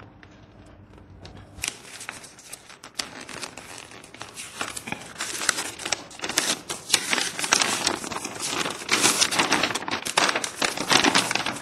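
Paper rustling and crinkling as a folded paper ballot is unfolded by hand, getting louder from about two seconds in.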